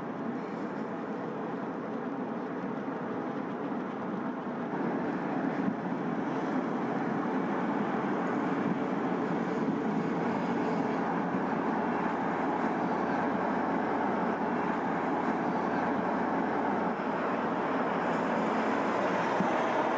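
BMW 330d Touring, with its straight-six diesel, driving along a road at speed: steady engine and tyre noise that grows louder about five seconds in, with a rising whoosh near the end as the car comes close.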